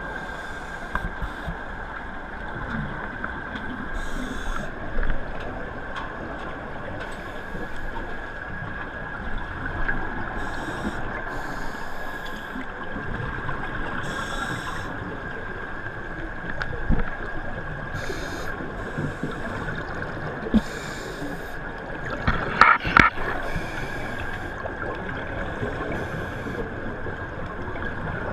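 Scuba regulator breathing heard underwater: bursts of exhaled bubbles every couple of seconds over a steady background hum with a thin constant tone. A brief louder sound stands out near the end.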